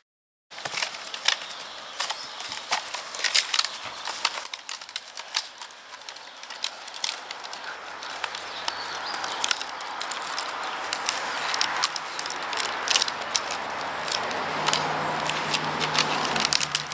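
Dry stick or reed crackling and snapping in irregular sharp cracks as two Dobermans chew and tug on it. A low steady hum comes in about halfway through and grows louder toward the end.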